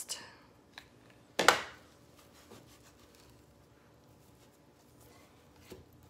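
A short rough scrape about a second and a half in as the rope-covered foam board is handled on the stone countertop, with a faint click just before it; otherwise a quiet room with a faint steady hum.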